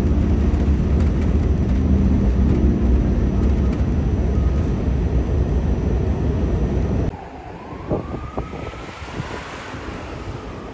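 Subway train running through a station: a loud, steady rumble with a faint high whine. About seven seconds in it cuts off abruptly to quieter street ambience, with a faint tone that rises and then falls once and a few light clicks.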